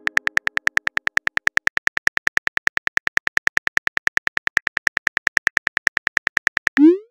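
Texting-app typing sound effect: a fast, even run of short electronic ticks, about ten a second, as a message is typed out. Near the end a short rising whoosh plays as the message is sent.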